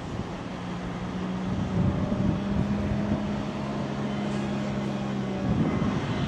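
Saab 340A twin turboprop engines and propellers droning steadily as the airliner flares and touches down, a low hum with a second, deeper tone joining about halfway. Near the end the hum cuts off and a rougher rushing noise takes over.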